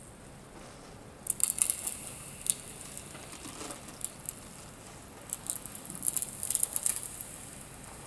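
Crackling, crinkling noise in two clusters of sharp clicks, about a second in and again about five seconds in, over a faint steady hiss.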